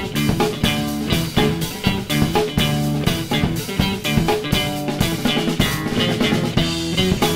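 Instrumental rock background music with electric guitar and a steady drum beat.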